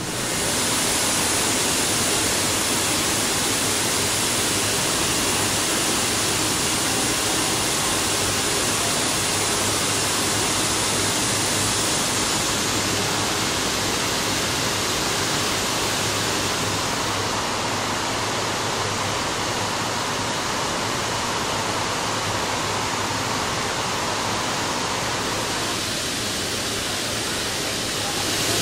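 Steady, loud rushing noise in a distillery still house with copper pot stills, with no distinct events. Its tone dulls slightly about halfway through and shifts again near the end.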